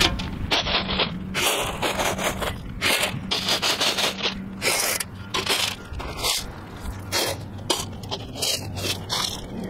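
Shovel scraping and digging into a pile of crushed gravel: a string of short scrapes with the stones crunching and rattling as each scoop is taken.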